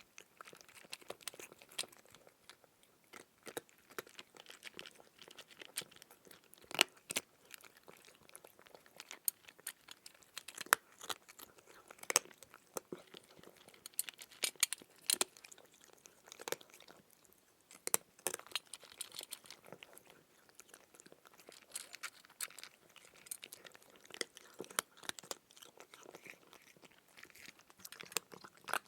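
Crunchy eating sound effect: irregular crisp crunches and crackles of chewing, with a louder crunch every few seconds.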